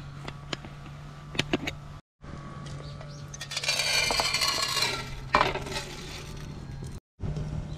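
A plastic bottle's cap clicks open. Then soaked rice and water pour out of the bottle into an aluminium mess tin, with a splashing rush and a sharp knock a little after five seconds in. A low steady hum runs underneath.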